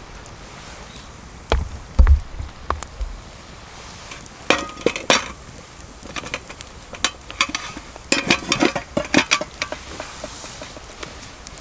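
Camp cookware and utensils being handled: a few dull knocks, then two clusters of sharp clinks and rattles.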